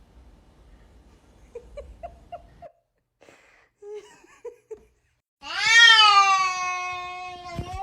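A domestic cat giving one long, loud meow that rises slightly and then slides slowly down in pitch, starting about two-thirds of the way in. It is preceded by a handful of short, faint chirps.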